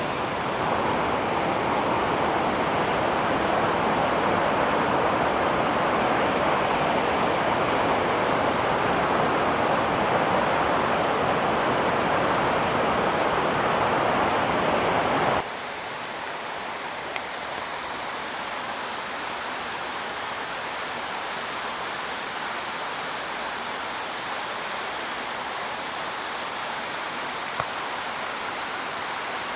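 Rain-swollen stream of runoff water rushing steadily. About halfway through it drops suddenly to a quieter, thinner rush.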